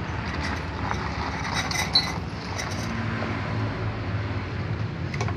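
Scraping and rubbing of a hand and tool inside a truck's rear wheel hub, with one sharp metal click about two seconds in, over a steady low hum.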